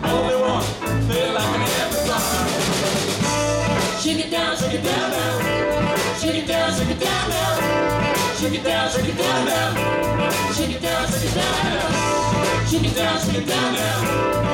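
Live rock band playing amplified: electric guitars, bass guitar and keyboard over a steady beat, with a woman singing.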